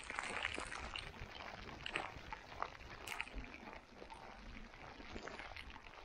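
Boots crunching through deep snow in an irregular walking rhythm, with a low wind rumble on the microphone in a snowstorm.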